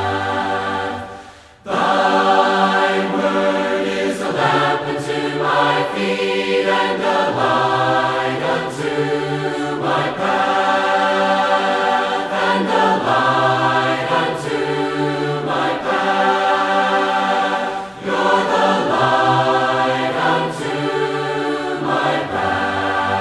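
A group of voices singing a hymn a cappella, in sustained chords that change about once a second, with a brief break between phrases about a second and a half in.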